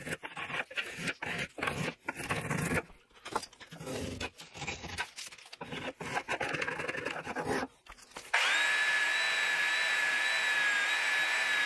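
Steel spokeshave cutting shavings from the edge of a maple paddle in a run of irregular scraping strokes. About eight seconds in, it switches abruptly to a 3 x 21 inch belt sander running steadily with a high whine as it sands the maple.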